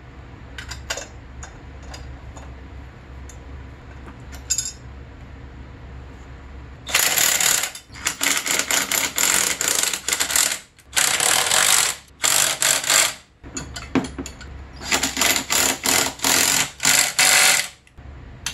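Socket ratchet wrench clicking rapidly as it runs a bolt down in three spells, after a few seconds of quiet with faint ticks while the bolt is started by hand.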